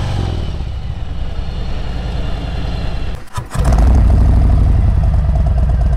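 Harley-Davidson touring motorcycle's V-twin engine running steadily while riding. After a brief dip about three seconds in, a louder steady deep rumble takes over.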